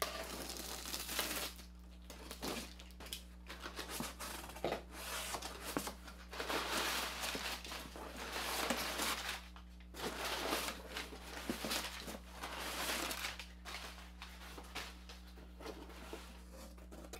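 Packing tape being pulled and torn off a cardboard shipping box. This is followed by irregular rustling and scraping of cardboard flaps and packing material as hands dig around inside the box.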